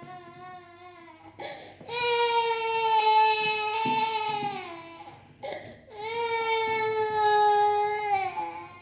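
A young child crying in long, high wails: two drawn-out cries of about three seconds each, each sliding down in pitch at its end, with a breath between them.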